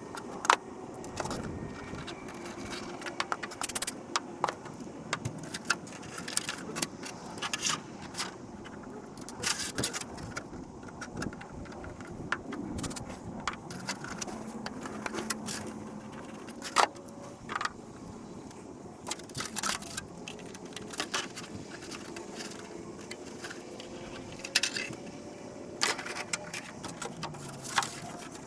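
Irregular sharp clicks, taps and light scrapes of hard parts and tools being handled at a workbench, with faint steady background noise.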